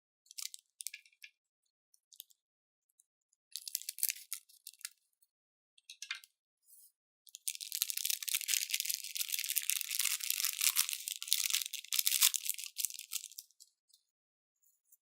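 Dry crackling and rattling in bouts: two short ones early, then a long, dense one of about six seconds. It is typical of something small and crisp being handled or shaken.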